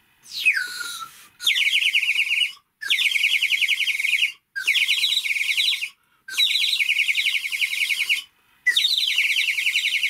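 Homemade water whistle (a small plastic tub part-filled with water, blown through a plastic tube) whistling. A falling whistle comes first, then five bird-like warbling trills of a second or so each, with short breaks between them; the water inside makes the tone warble.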